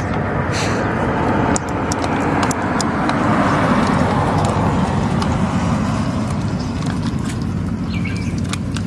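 A road vehicle passing by: a steady rush that swells to a peak about halfway through, then eases off, with a few faint clicks.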